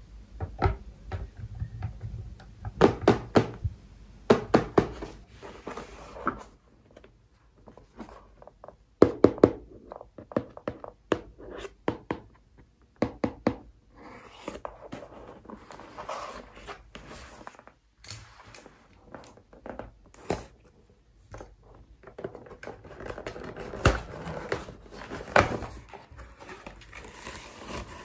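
Hands handling plastic toys and a cardboard toy box make irregular clusters of sharp taps and knocks. These are followed by cardboard and paper rustling and scraping as the box flap is opened and the paper inserts are pulled out.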